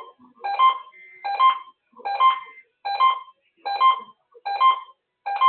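Electronic beeps played over a radio broadcast, repeating a little more than once a second, each beep a brief cluster of several steady tones.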